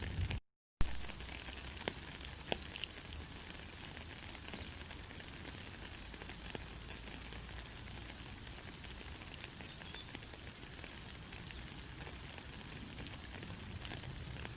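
Steady white-noise hiss for lulling a baby to sleep, spread evenly from low rumble to high hiss with faint scattered crackles, much like sizzling. About half a second in it drops out completely for a moment and comes back with a sharp click.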